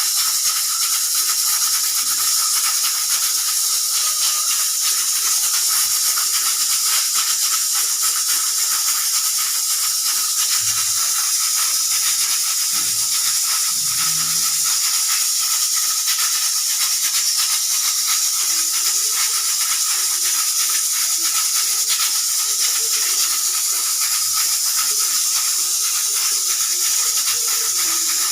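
Steam hissing steadily from a pressure cooker, with no whistle blowing: the cooker's whistle is not working.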